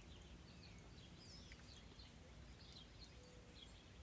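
Faint birdsong: scattered short chirps and quick falling whistles over a low steady hum.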